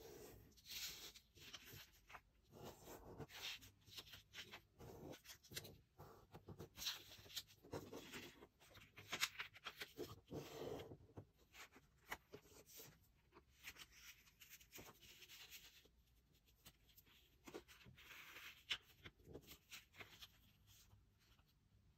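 A sheet of origami paper being folded by hand: faint, irregular rustling and crinkling as fingers slide along the folds and press the creases flat. It dies down near the end.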